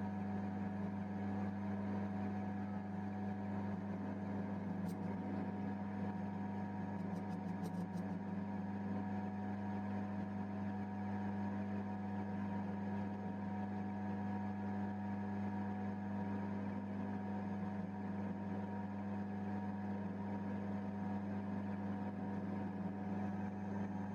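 Electric motor of a homemade benchtop metal lathe running steadily with a constant mains hum, with a few faint light ticks about five and seven seconds in.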